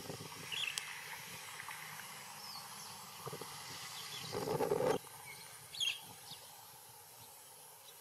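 A dog barking, with a rougher, longer bark about four and a half seconds in, and short high bird chirps in between.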